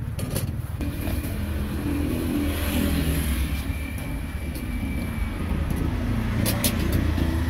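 A motor vehicle's engine running, a steady low hum, with a few sharp knocks just after the start and about six and a half seconds in.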